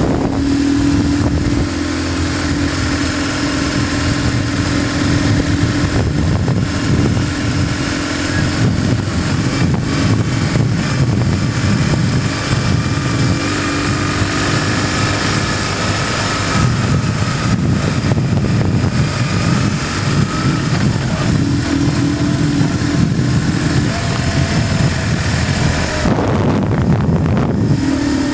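BMW GS motorcycle engine running as the bike rides along a winding road, with a steady hum of wind and road noise. The engine note alternates between a smooth steady tone and a rougher rumble. The hiss drops away briefly near the end.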